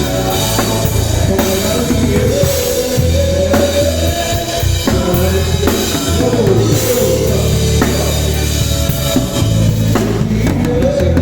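A live band playing: a drum kit keeping a steady beat under a bass line, with a gliding melody line on top.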